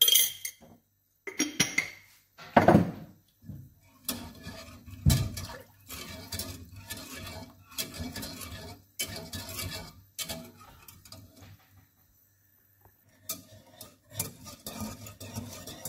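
Wire whisk scraping and clicking around a small nonstick saucepan in quick repeated strokes, stirring béchamel continuously over the heat as it thickens. There are a few louder knocks in the first seconds and a short pause about ten seconds in.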